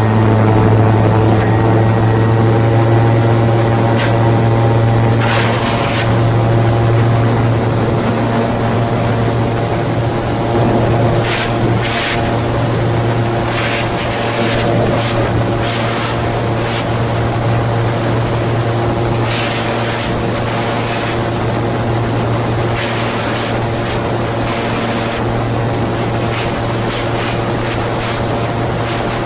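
Gyroplane's engine and pusher propeller running at take-off power through the take-off run, lift-off and climb-out: a loud, steady drone with a strong low hum. Brief rushes of wind noise across the microphone come and go throughout.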